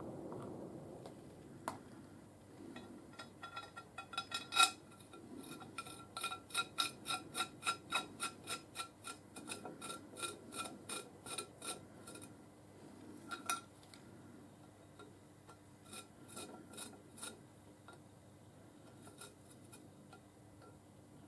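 Small steel parts being handled: a run of light metallic ticks, about three a second for several seconds, then a few scattered clicks, with some rubbing of metal on metal.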